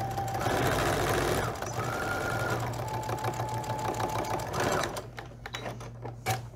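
Electric sewing machine stitching a seam, its motor whine shifting pitch as the speed changes. It stops about five seconds in, followed by a few clicks.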